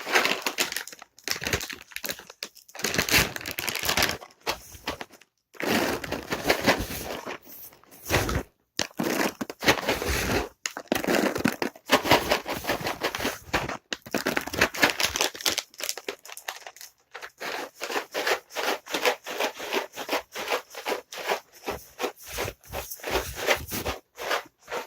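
Dry cat treats shaken in a container, rattling in bursts of about a second or two with short pauses between them, turning into quicker, shorter shakes in the second half. This is the rattle used to call a cat to its treats.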